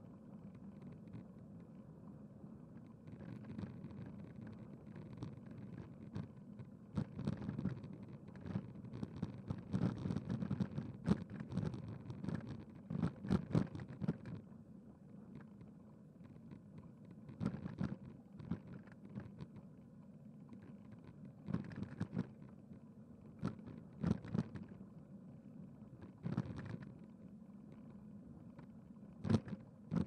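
Wind rumbling on the microphone of a moving camera, with irregular louder gusts crackling over a steady low rumble; the gusts are thickest in the first half.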